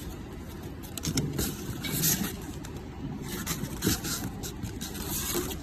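Automatic stitching machine running: a steady low hum with irregular short hisses and clacks, one sharper clack about four seconds in.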